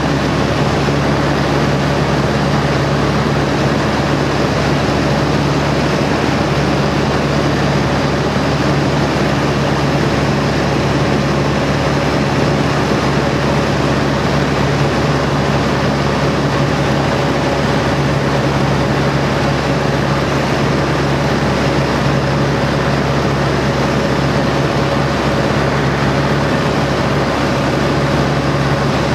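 A de Havilland Chipmunk's four-cylinder Gipsy Major engine running steadily in flight, heard from inside the cockpit, with a constant rush of air.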